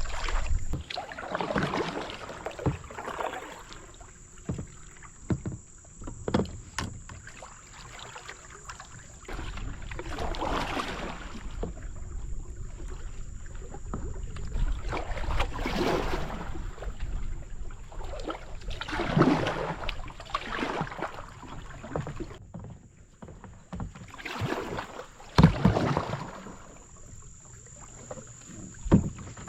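Canoe paddles dipping and pulling through the water, a swishing splash every few seconds at an uneven pace.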